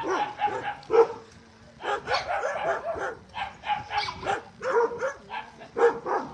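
Young puppies whining and yipping in many short, high cries, two or three a second, with a brief lull about a second in.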